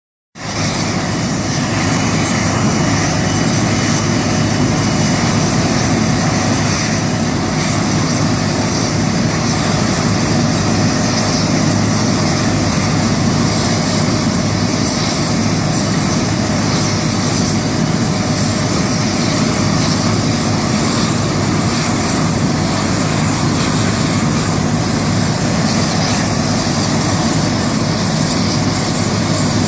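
Tractor with a tractor-mounted heat-impact thermal weeder running steadily while it works along a vine row, a loud, even mechanical drone.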